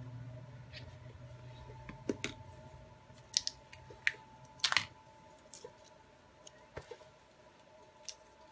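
Scattered light clicks and taps of small hard objects being handled on a workbench, irregular and loudest around the middle, over a faint steady electrical whine. A low hum fades out about three seconds in.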